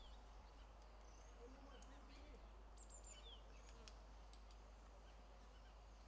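Near silence: faint outdoor ambience with a steady low rumble, a few faint, high, distant bird chirps including one short falling note near the middle, and a few light ticks shortly after.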